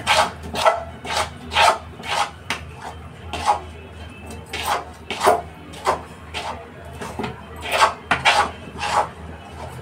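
A metal spoon scraping around a metal kadhai while stirring thick coconut barfi mixture, mixing in the green food colour. The strokes come about twice a second in a steady rasping rhythm, with a couple of short pauses.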